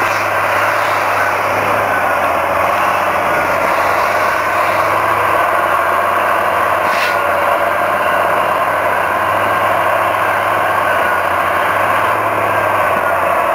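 Diesel engines of two wheel loaders, a Clark 125C and a Case W36, running steadily under work, with a faint engine note rising and falling. A short sharp click comes about halfway through.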